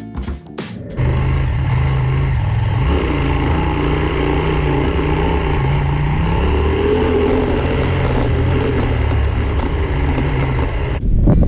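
Adventure motorcycle engine running at fairly steady revs, with a brief rise in pitch a couple of seconds in. Guitar music cuts off about a second in, and the sound changes abruptly near the end.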